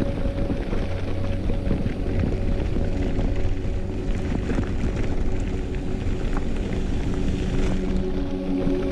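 Mountain bike rolling fast down a gravel track, with tyres crunching over loose stones, the bike rattling over bumps and wind rushing on the camera. Steady sustained tones sit underneath.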